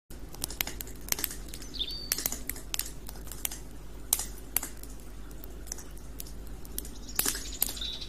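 Wood campfire crackling, with irregular sharp pops. A small bird chirps briefly about two seconds in and again near the end.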